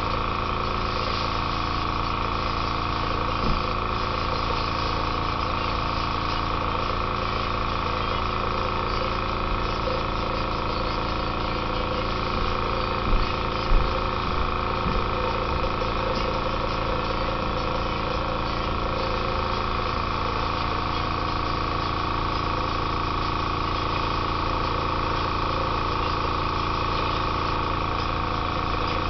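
Airbrush air compressor running with a steady hum, with the hiss of the airbrush over it. A few brief knocks, the loudest a little before the middle.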